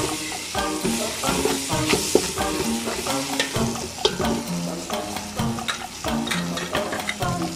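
Chopped tomatoes and sliced onions sizzling in hot oil in a large aluminium pot, stirred with a metal spoon that scrapes and clicks against the pot. Background music with short held notes plays underneath.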